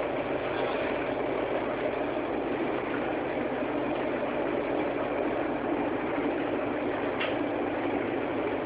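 Houseboat engine running steadily: a constant drone with no change in speed.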